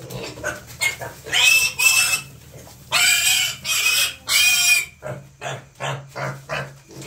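Pigs squealing loudly: five long, shrill squeals in two bunches, then shorter, quieter grunts near the end.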